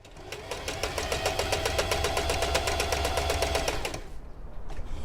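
Singer Heavy Duty 4432 sewing machine running fast: a rapid, even clatter of needle strokes over a motor hum. It comes up to speed at the start and stops about four seconds in.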